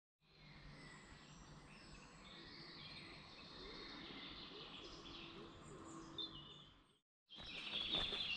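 Faint birdsong, small chirps and trills, over a quiet outdoor background, with no footsteps. The sound starts after a short gap and cuts off abruptly about seven seconds in.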